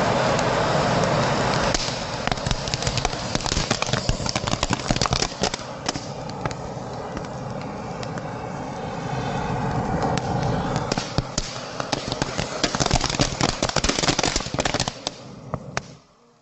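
Fountain fireworks spewing sparks with a steady rushing hiss full of sharp crackles. The noise eases a little about two seconds in and cuts out near the end as the fountains burn out.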